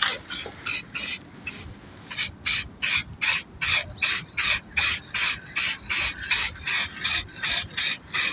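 Hand sanding: quick back-and-forth rubbing strokes of an abrasive, about three a second, with a short pause about a second and a half in.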